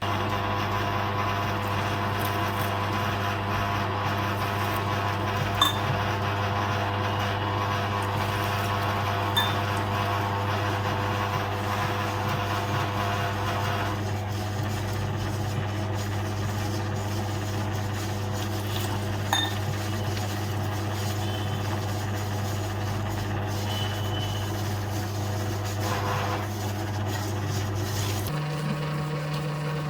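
Prestige wet grinder's electric motor running with a steady low hum, with a few light knocks from the drum. The hum shifts to a higher pitch near the end.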